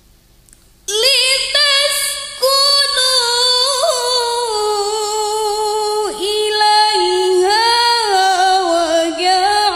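A woman reciting the Quran in the melodic tilawah style. She comes in about a second in with a long, ornamented phrase of held notes that slowly step down in pitch.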